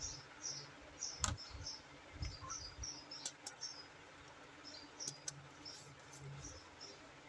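Sharp clicks and soft knocks of toys and packaging being handled. Short, high chirps repeat in the background throughout.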